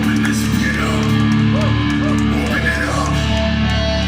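Heavy metal band playing live, with distorted electric guitar to the fore over bass and drums; bending guitar notes come and go above the sustained chords.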